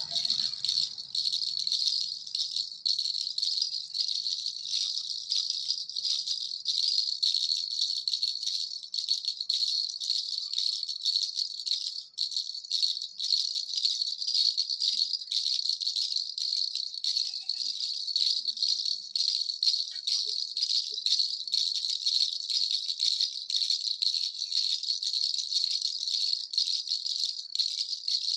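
Baby rattle with little bells shaken steadily: a continuous bright, high jingling made of rapid irregular clicks.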